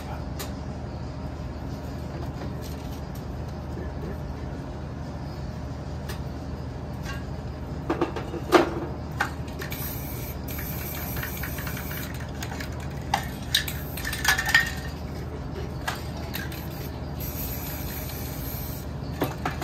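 Metal aerosol spray-paint cans clinking and knocking as they are handled, in a few clusters, with short hissing sprays from a can, over a steady low hum.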